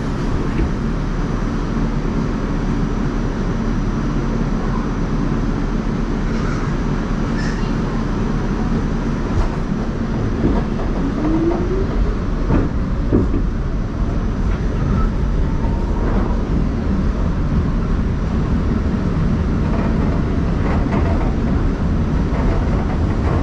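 New York City subway train heard from inside the car: a steady rumble and rattle of wheels on the track as it pulls out of a station and gathers speed.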